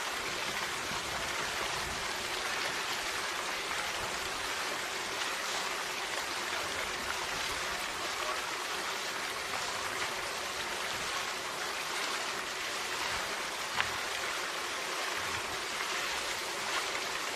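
A steady, even rushing hiss that does not change.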